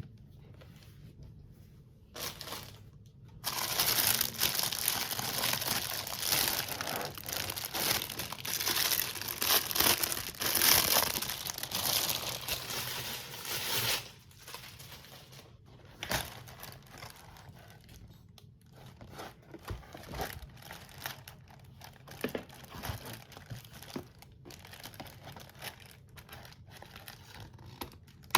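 Plastic packaging crinkling and tearing as a new box is unwrapped. It is dense and loud from about three seconds in for some ten seconds, then thins to light crinkles and small clicks.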